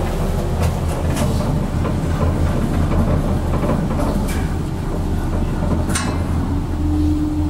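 A 1986 Thorvald Sætre (Stahl) relay-controlled traction elevator car travelling, with a steady low hum and rumble. There is a click about six seconds in, and a steady tone comes in near the end.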